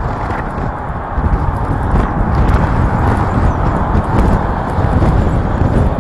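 Strong wind buffeting the microphone: a loud, steady rushing noise with rough, uneven low rumbling.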